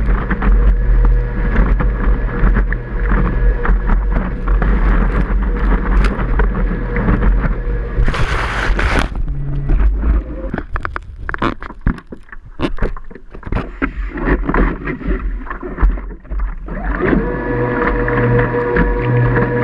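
Surfboard jet drive (WaveJet) whining steadily over rushing water as the board rides a wave. About eight seconds in a loud burst of water noise as the rider goes into the whitewater, the motor note drops out for several seconds of splashing, then it winds back up about seventeen seconds in and runs steadily again with water slapping the board.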